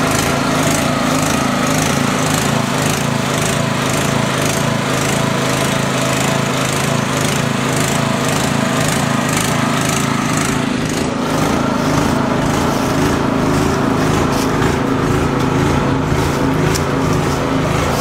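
Small gasoline-engine transfer pump running at a steady speed, pumping maple sap through a hose from one tank into another.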